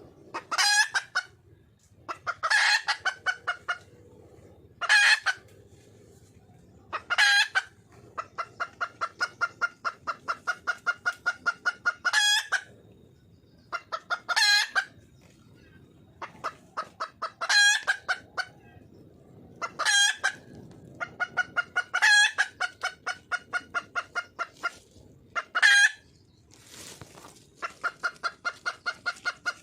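Wild hen (female red junglefowl) calling: a loud, sharp call repeated about every two to two and a half seconds, with runs of rapid clucks, about four a second, between several of the calls. It is the hen's call for a mate.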